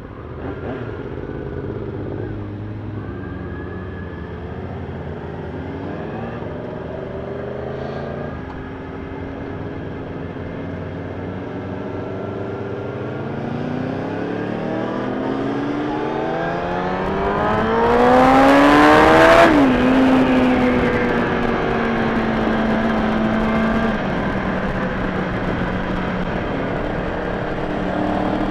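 Kawasaki ZX-6R inline-four sport-bike engine under way. The revs climb steadily for several seconds to a loud, high peak about two-thirds of the way in. The pitch then drops sharply and holds steady at a lower pitch.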